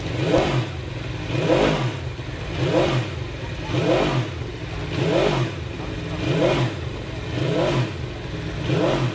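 Racing motorcycle engine revved in a steady run of throttle blips, its pitch rising and falling about once every 1.2 seconds.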